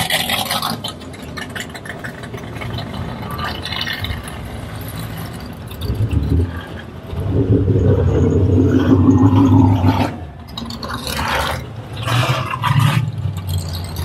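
Car engine running, loudest and steady for about three seconds past the middle, amid other mechanical noise.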